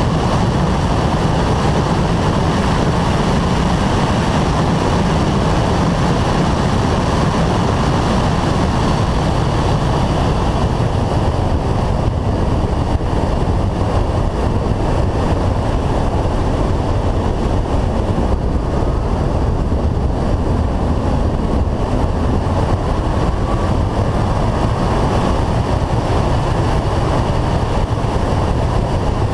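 Steady rush of wind over a roof-mounted action camera at track speed, with the muffled running of the Renault Clio 182's 2.0-litre four-cylinder engine and tyre and road noise underneath.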